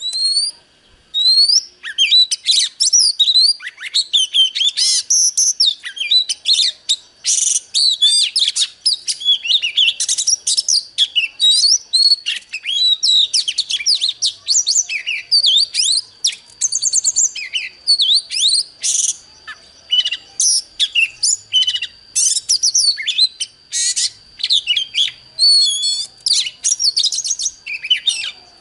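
Oriental magpie-robin singing a rapid, varied song of whistles and sweeping up-and-down notes, almost without pause: a territorial song duel between a caged bird and a wild one.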